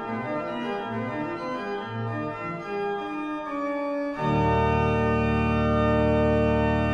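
Pieter Backer pipe organ playing a prelude: moving lines of held notes, then about four seconds in a full sustained chord with deep pedal bass comes in, louder.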